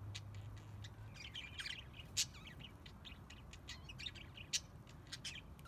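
A flock of budgerigars chirping and chattering: a steady stream of short, high chirps, with a sharper, louder chirp about two seconds in and another about four and a half seconds in.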